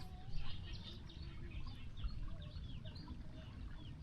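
Small birds chirping in many short, quick, falling chirps over a steady low rumble.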